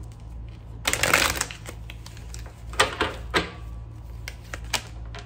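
Tarot deck being shuffled by hand: a quick dense flurry of cards about a second in, then scattered sharp card snaps and taps.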